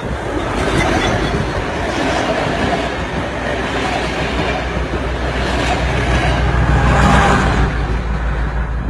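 Loud, dense rumbling vehicle noise with a heavy low end, swelling to its loudest about seven seconds in, then fading.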